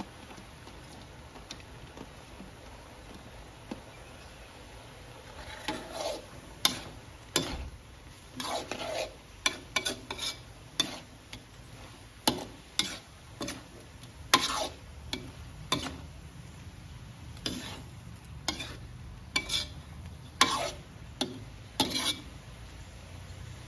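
Metal spatula scraping and clacking against a metal wok as a stir-fry of shrimp, curry powder and vegetables is tossed. The strokes start about five seconds in and come irregularly, about once or twice a second, until near the end.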